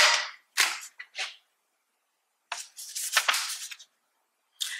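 A person sniffing sharply through the nose, close up: a few quick sniffs at first, then a longer run of sniffs about two and a half seconds in, smelling perfume on a paper test card.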